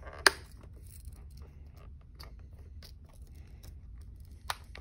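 A football helmet's chin strap being adjusted by hand at its top snap: a sharp plastic click shortly after the start, then light ticks and scrapes as the strap is worked through its buckle, and another click near the end.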